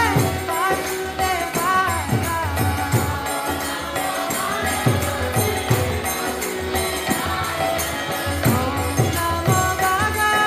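Kirtan: a group singing a devotional mantra, with jingling hand percussion and a steady, low drum beat.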